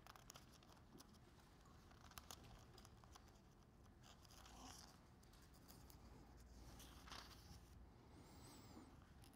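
Faint rustle of thin Bible pages being leafed through by hand, with a few soft ticks, the most distinct about two seconds in.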